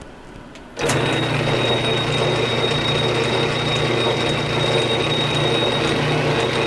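South Bend Model A 9-inch lathe starting up suddenly about a second in, then running steadily with a low hum and a thin high whine, as it takes a thread-chasing pass on an external thread with the half nuts engaged.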